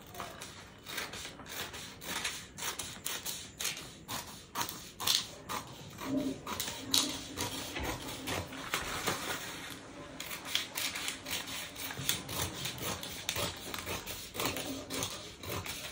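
Paper scissors snipping through a large sheet of pattern paper in an irregular run of cuts, with the paper rustling and crinkling between snips.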